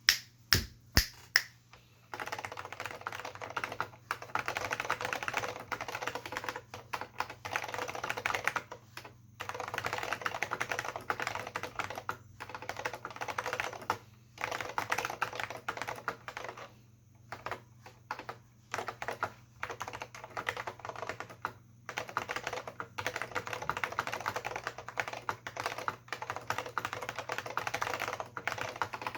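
Typing on an AT&T Unix PC keyboard with tactile Alps SKCM Brown switches and PBT dye-sub keycaps. A few separate loud keystrokes come first, then from about two seconds in a fast, continuous run of key clicks broken by short pauses.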